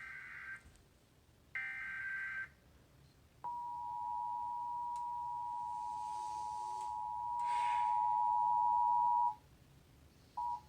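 The last two of the three EAS SAME header data bursts, short warbling digital squawks about a second apart, followed about 3.5 s in by the Emergency Alert System two-tone attention signal (853 and 960 Hz together), a steady harsh dual tone held for about six seconds and cutting off sharply. A brief blip of the same dual tone sounds near the end.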